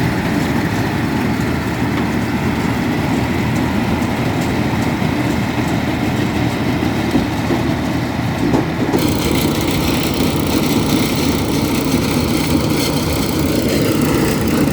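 Tractor engine running steadily during corn harvest with a 2-row corn picker; about nine seconds in the sound turns brighter and hissier.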